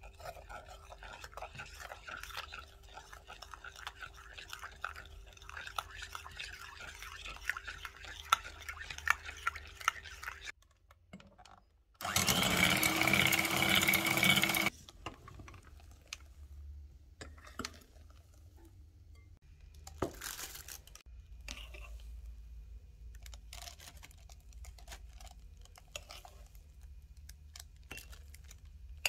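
A metal spoon scraping and clinking against a glass bowl as it stirs for about ten seconds. Then an electric hand mixer runs for about three seconds, whipping the mixture, starting and stopping abruptly. After it, scattered spoon clinks and scrapes as the foam is spooned into a glass.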